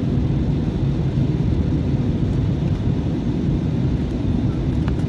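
Cabin noise inside an Airbus A321 on the ground after landing: a steady low rumble.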